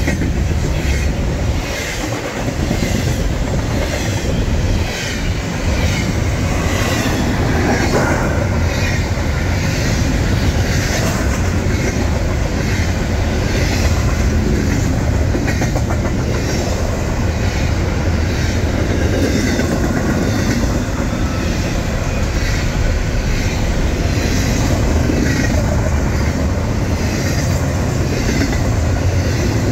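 BNSF double-stack intermodal freight train rolling past close by: a steady, loud rumble of the well cars with repeating clicks as the wheels pass over rail joints.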